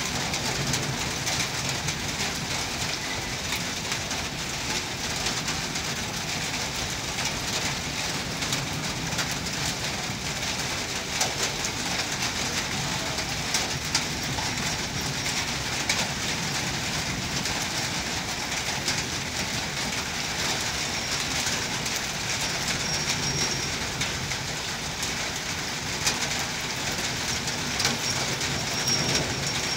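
Indian Railways passenger coaches rolling past on the rails, with a steady wash of rain noise. A few short high squeaks come near the end.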